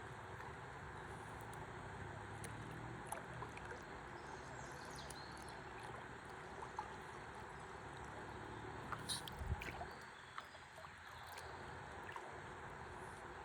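Faint river water trickling and lapping against a stand-up paddleboard, with scattered small clicks and one louder low thump about nine seconds in.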